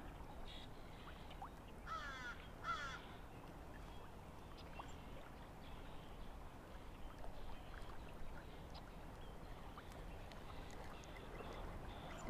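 Steady low rush of river water, with a bird giving two short calls about two and three seconds in.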